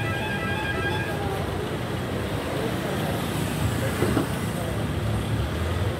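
Vehicle engines running in the street, a steady low rumble, with traffic noise and voices around. Music fades out about a second in, and a brief louder noise comes about four seconds in.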